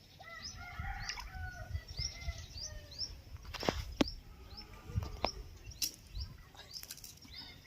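Small birds chirping over and over in short rising notes, with a few sharp clicks near the middle and a low rumble underneath.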